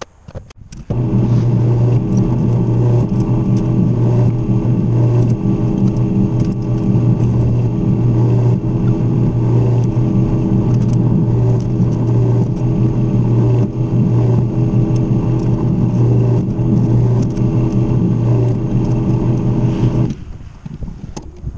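Benchtop drill press motor running steadily with a strong low hum. It starts about a second in and cuts off sharply near the end.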